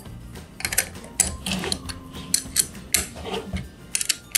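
Small ratchet wrench clicking in short runs of two or three clicks, several times over, as it tightens the hex bolts that fasten the bottom plate to a bronze water meter's body.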